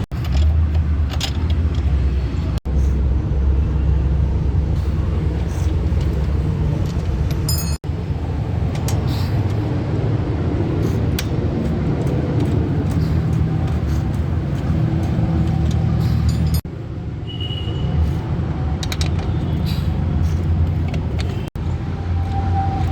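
Steady low rumble of a running motor-vehicle engine, with light metallic clinks of tools.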